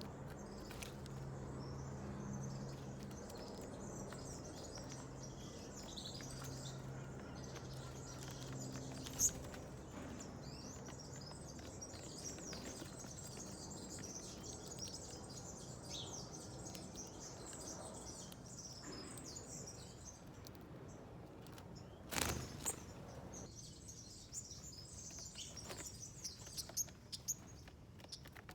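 Small wild birds chirping and twittering at a garden feeder, many short high calls that grow busier near the end. A low steady hum runs through the first third, and one brief louder noise comes a little after two-thirds of the way through.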